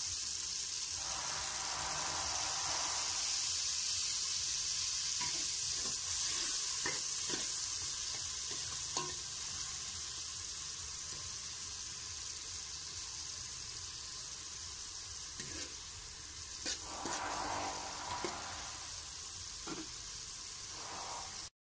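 Garlic, onion and tomatoes sizzling steadily in oil and fish sauce in an aluminium pot. A metal spatula stirs them, clinking and scraping against the pot now and then, mostly a few seconds in and again near the end.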